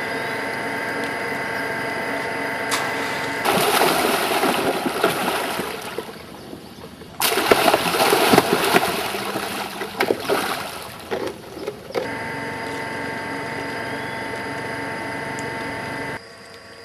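A small engine running at a steady drone, with water splashing loudly in two spells, one a few seconds in and another near the middle.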